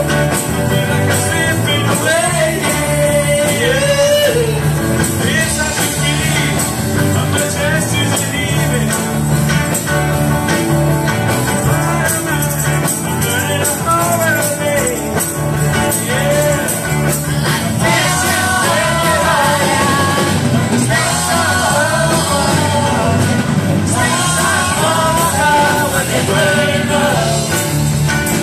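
Rock and roll band playing a song, with a lead singer over a steady beat.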